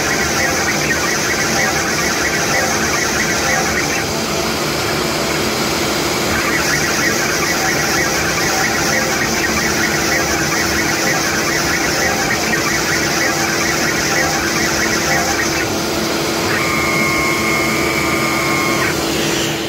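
CNC router spindle running steadily with a constant whine while a small drill bit bores a row of holes in wood, the sound changing as the bit plunges and lifts. Near the end a steady high whine joins in for a few seconds as the head traverses along the workpiece.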